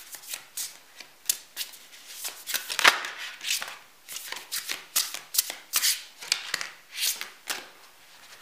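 A tarot deck being shuffled by hand, a fast, irregular run of crisp card swishes and flicks, with cards laid down on a cloth-covered table. The sharpest snap comes about three seconds in.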